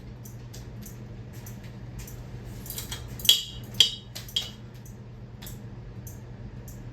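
Mainstays ceiling fan motor humming steadily with faint regular ticking as it spins. Between about three and four and a half seconds in come three sharp metallic clicks and clinks from the fan's light pull-chain switch and its bead chain.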